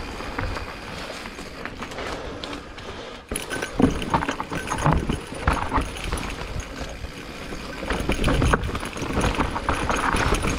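Specialized Turbo Levo e-mountain bike riding over rough, rocky trail: tyres rolling on dirt and rock with irregular knocks and rattles from the bike.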